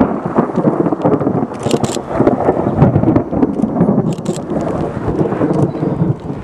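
Thunder from a supercell thunderstorm, rumbling loud and continuous with a crackling texture throughout.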